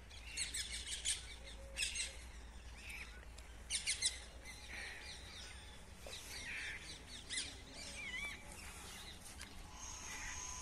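Small birds chirping in short bursts of quick, high twittering, with a wavering whistled call about eight seconds in.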